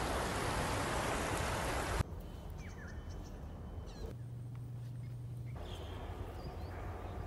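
Loud steady rushing hiss that cuts off abruptly about two seconds in. It gives way to quieter outdoor ambience with a few short rising bird chirps, and a low steady hum for about a second and a half in the middle.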